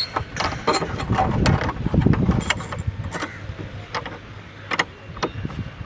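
Irregular knocks and clinks of steel reinforcing bar being handled and bent into stirrups, about a knock every second, over a low steady hum.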